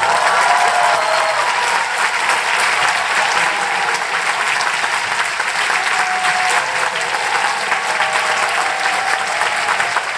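Concert audience applauding, a dense steady clapping that breaks out at once as the music stops.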